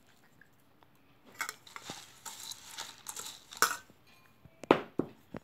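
A perforated steel ladle stirring puffed rice in a steel plate: dry rustling and scraping of the puffed rice starting about a second in, with sharp clinks of the ladle against the plate, the loudest near the end.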